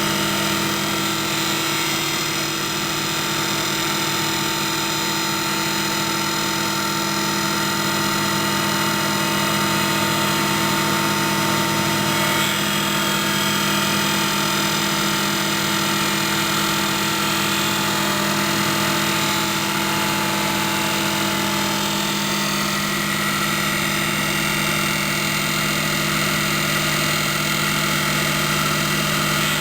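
Hapfo copy lathe running steadily: a constant machine hum with several steady tones over an even hiss.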